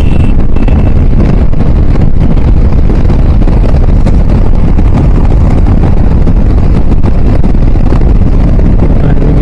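Wind buffeting a helmet-mounted action-camera microphone, shielded by a foam sponge, dead cat and Windslayer cover, while a motorcycle rides at about 110 km/h on the highway. It is a loud, steady, low rumble that comes close to clipping, with the bike's running and road noise mixed in underneath.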